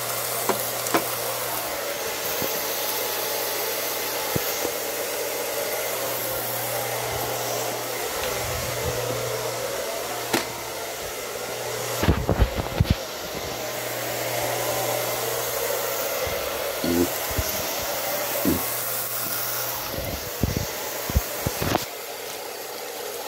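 Steady whirring blower noise with a constant low hum, like a small electric fan or hair-dryer motor running, with a few loud handling knocks about halfway through.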